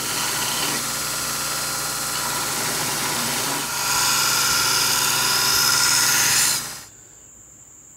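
Belt grinder running with a 1095 and wrought iron san mai knife blade pressed against the belt, a steady grinding hiss that gets louder a little past halfway. It cuts off abruptly near the end, leaving crickets trilling steadily.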